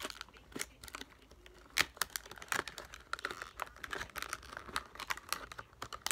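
Clear plastic toy packaging crinkling and clicking irregularly as fingers pick and pull at it, trying to get it open.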